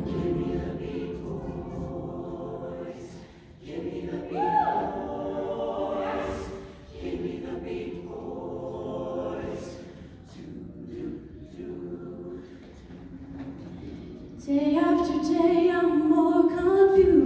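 Mixed-voice show choir singing a slow passage of held chords in separate phrases, swelling in the middle and closing on a loud sustained chord that cuts off near the end.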